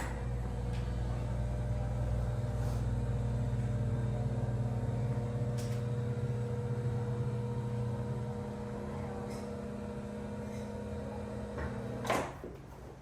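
A motor humming steadily, with a low drone and several constant tones, stopping about 12 seconds in.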